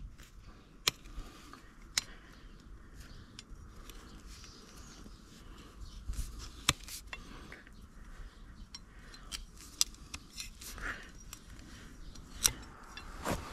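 Hoof nippers cutting through a horse's front hoof wall during a trim: about six sharp snips at uneven intervals, with quieter scraping of horn between them.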